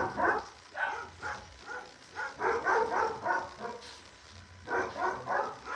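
Puppies vocalizing in several quick clusters of short, pitched calls.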